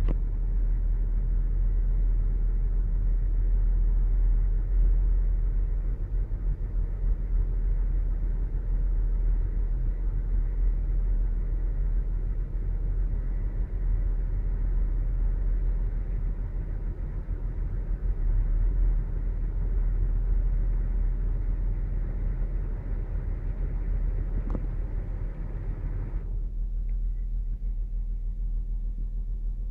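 2008 Saturn Outlook's 3.6-litre V6 engine running, a steady low rumble. About 26 seconds in, the higher part of the sound drops away abruptly and only the deep rumble remains.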